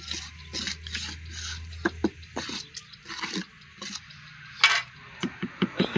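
Cement masonry work: repeated short scraping strokes, about two a second, with sharp knocks and one louder scrape near the end, typical of a trowel working mortar against concrete blocks.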